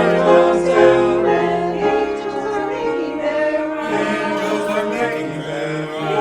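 Music: a choir singing held notes.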